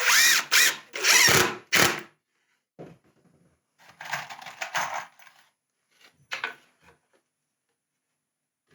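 Cordless drill running in several short loud bursts with a whine that rises and falls, driving into wood, followed by quieter knocks and handling of timber.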